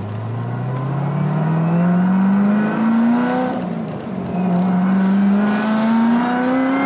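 Supercharged 6.2-litre V8 of a 2016 Corvette Z06, built up with LMR engine upgrades, accelerating hard under throttle. The revs climb, fall at a gear change about three and a half seconds in, then climb again in the next gear.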